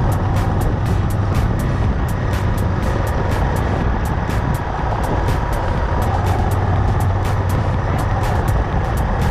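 Honda Africa Twin motorcycle engine running steadily on the move, a constant low drone, with a fast, even ticking beat over it, about four ticks a second.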